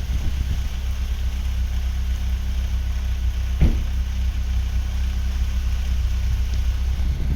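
Opel Astra GSi 2.0i's four-cylinder engine idling steadily through its original exhaust, with a deep, low note. A single short knock about three and a half seconds in.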